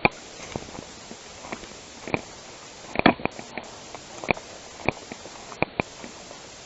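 Footsteps moving through woodland undergrowth: a string of irregular, sharp crunches over a steady outdoor hiss.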